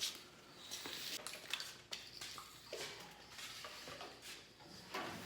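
Faint, scattered light clicks and rustling, the sound of something being handled and moved about.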